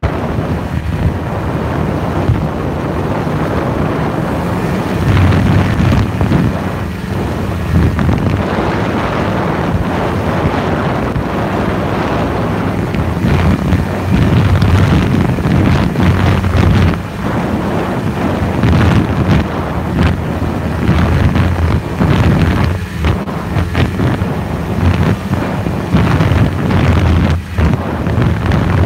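Snowmobile engine running steadily as the sled travels along the trail, with heavy wind noise on the phone's microphone.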